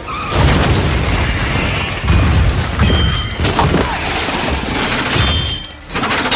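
Film action sound effects of destruction: heavy booms, crashes and grinding metal as a spinning spiked alien sphere machine tears through cars. There are several big hits, the first about half a second in, and a brief drop in the din near the end.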